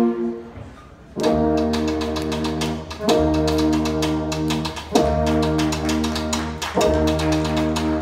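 Youth band playing: after a brief lull in the first second, brass-led chords are held over a low bass and struck again about every two seconds, with drum strokes cutting through.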